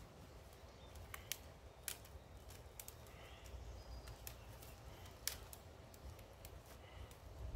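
Faint, scattered sharp clicks and clinks of a welded-wire fence panel as it is handled, over a low steady outdoor rumble.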